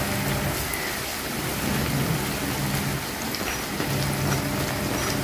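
Batter fritters of pucuk manis leaves sizzling steadily as they shallow-fry in hot oil in a frying pan.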